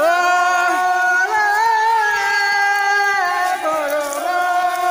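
A person's voice holding one long, high chanted call, gliding up into it at the start and dipping a little in pitch near the end.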